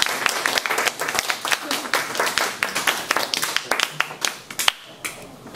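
A small audience applauding, with individual claps distinct and voices mixed in; the clapping thins out near the end.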